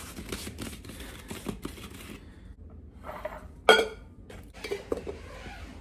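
Plastic tub of protein powder being opened and a scoop of powder taken out and tipped into a stainless steel shaker cup: handling, scraping and rustling, with one loud sharp clack a little under four seconds in and a few lighter knocks after it.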